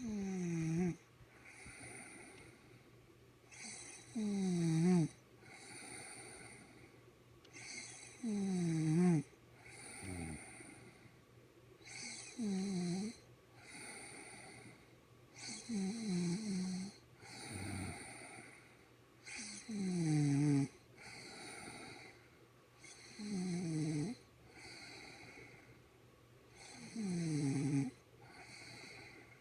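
A woman snoring loudly in her sleep, one snore about every four seconds, each sliding down in pitch, with quieter breathing between.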